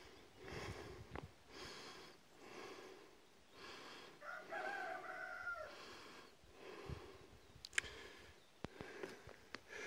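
A rooster crows once, about four seconds in, a single call lasting about a second and a half.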